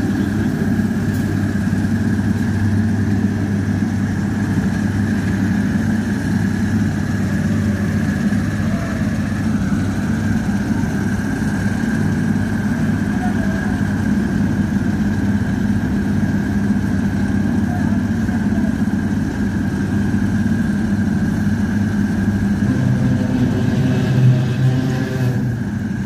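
Diesel engines of an asphalt paver and the tipper truck feeding it running steadily: a low, even engine drone with a thin steady whine above it.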